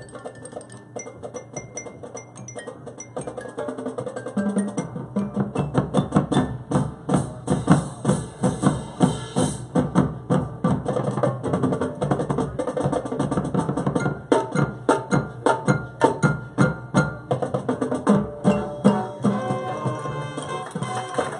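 A high school marching band playing a Latin-style show, led by percussion. It starts quietly, then builds from about four seconds in to loud, rhythmic drum and percussion hits.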